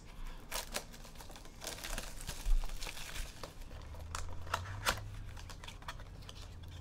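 Plastic packaging crinkling and rustling in the hands as trading-card packs and their wrappers are handled and opened, with a few sharper crackles.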